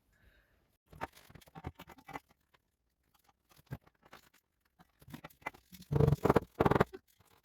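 Woodwork by hand: scattered light taps and scrapes, then two louder rough rasping strokes near the end.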